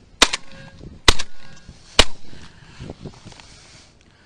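Three shotgun shots fired at a flock of ducks in flight, a little under a second apart, each a sharp crack with a short tail.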